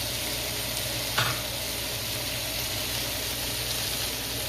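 Chicken and shrimp sizzling steadily in a frying pan, with a single sharp knock about a second in.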